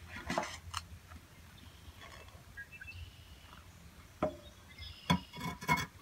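Stainless steel pan knocking and scraping against a cast-iron wood stove as it is lifted off the top and slid into the firebox. There are a couple of clinks at the start and a louder cluster of clanks near the end.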